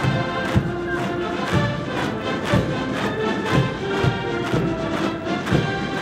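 Military march music from a band, with a steady beat of thumps about twice a second.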